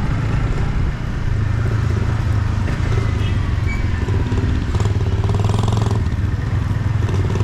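Yamaha MT-15's 155 cc single-cylinder engine on its stock exhaust, running steadily under way, heard from onboard the bike.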